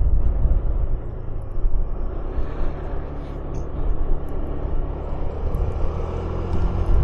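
Motor scooter being ridden along a road: the engine hum under heavy low wind rumble on the microphone, with a steadier engine tone coming through near the end.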